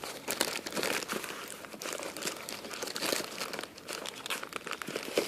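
Packaging crinkling and rustling as it is handled, with irregular crackles throughout.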